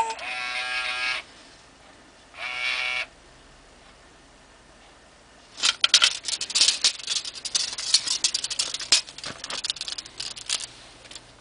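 FurReal Friends Lucky electronic toy cat giving two short, flat-pitched meows from its speaker. A few seconds later comes a run of clicking and rattling as the toy is handled and turned over.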